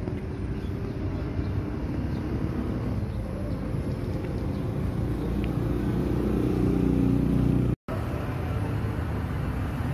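Street traffic: engines of passing cars and motorcycles rumbling steadily, with one vehicle growing louder toward seven seconds in. The sound cuts out for a split second just before eight seconds, then the traffic continues.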